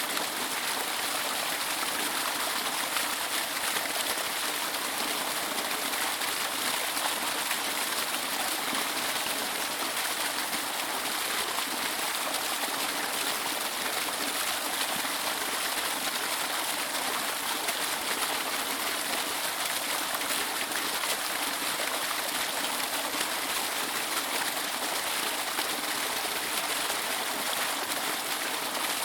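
Waterfall: water rushing and splashing in a steady, even hiss with little low rumble.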